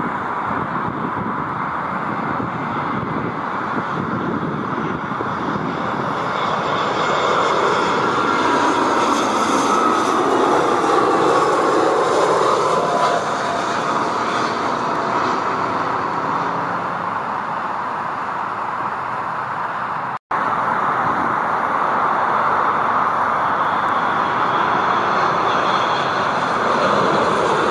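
Airliner engines passing by: a steady rush with a whine that slowly falls in pitch. The sound cuts out for an instant about twenty seconds in, then the engine noise carries on.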